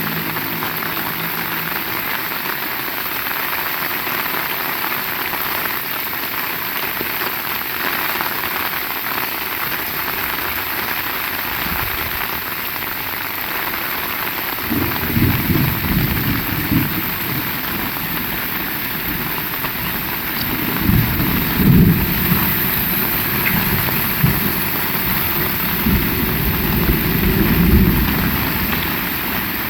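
Heavy rain falling steadily, with low rolling rumbles of thunder about halfway through and again twice near the end.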